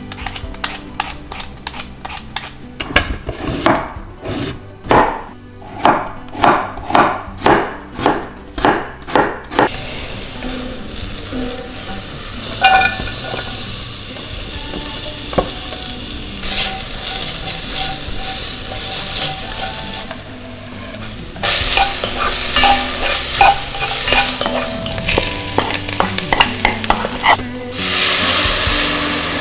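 Knife chopping sweet potato on a wooden cutting board at about two strokes a second. After that, julienned sweet potato sizzles in butter in a cast-iron pot as it is stirred and fried. Near the end, water pours from a kettle into the pot.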